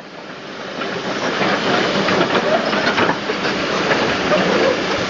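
Truck-mounted crane at work unloading pipes: an engine running under a steady rush of noise, with a few sharp clanks. The sound swells up over the first second or so.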